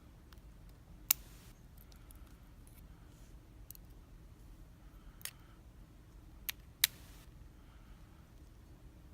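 Small metal clicks from handling the tiny pins and springs of a padlock's pin stacks while it is taken apart: a few scattered clicks, the sharpest about a second in and just before seven seconds.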